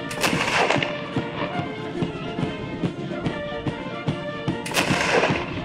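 Background music, with two black-powder shots from a flintlock Baker rifle cracking over it, one just after the start and one near the end.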